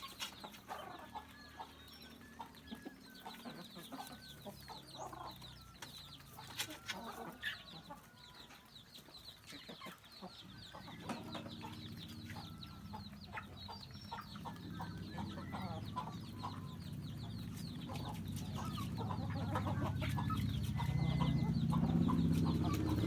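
A flock of free-range chickens clucking, with many short, high calls throughout. In the second half a low hum grows steadily louder.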